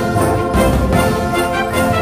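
Background music: an orchestral piece with brass.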